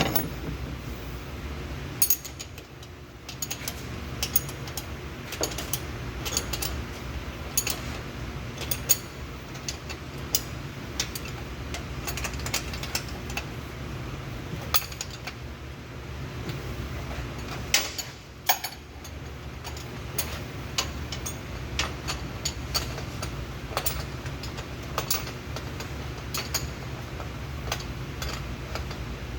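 Scattered metallic clinks and taps of hand tools and metal parts being handled, over a steady low hum.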